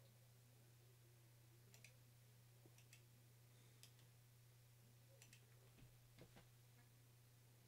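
Near silence: a handful of faint computer mouse clicks over a low steady hum.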